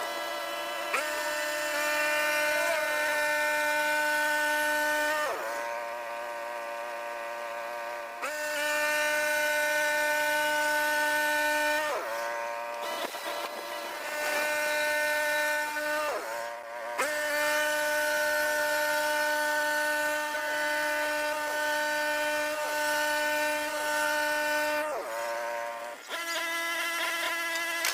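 A sawmill running with a steady, high whine that drops in pitch and level several times, around 5, 8, 12, 16 and 25 seconds in, and then climbs back up, as the saw goes in and out of the cut through pine.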